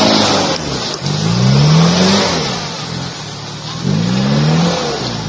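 Toyota Land Cruiser 70-series diesel engine revving hard twice under load, the pitch climbing each time, as its tyres churn through deep mud while the truck is winched out of a mud hole.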